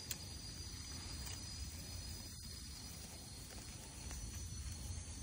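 Faint outdoor ambience: a steady high-pitched insect drone, a low rumble underneath, and one sharp click just after the start.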